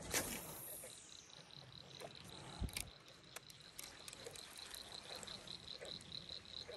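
A high chirp repeating evenly, about three times a second, from a calling insect, with a few faint low calls and light clicks underneath.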